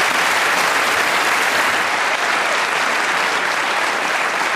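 Studio audience applauding, an even, sustained clapping.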